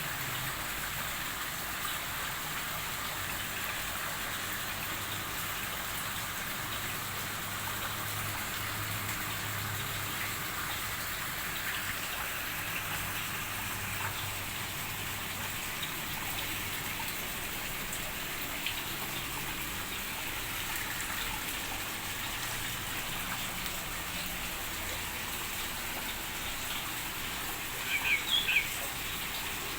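Steady hiss of falling or running water, like rain, with a few quick high bird chirps about two seconds before the end.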